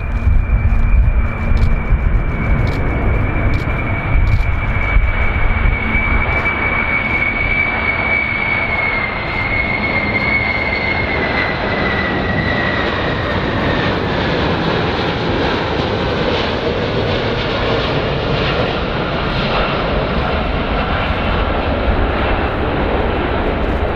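Boeing VC-25A's four turbofan engines on landing approach: a loud, steady rumble with a high whine that slowly falls in pitch as the jet passes. Wind buffets the microphone for the first few seconds.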